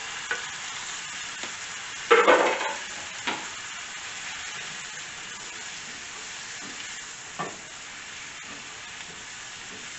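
Onion, garlic and jalapeño frying in a skillet with a steady sizzle as chopped tomatoes are tipped in, with a loud clatter about two seconds in, then a spatula stirring with a few light knocks.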